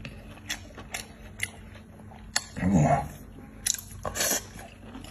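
Close-up mouth sounds of a person eating cooked sea snail meat: wet smacking clicks, then a louder wet bite and chew as the meat goes into the mouth near the end.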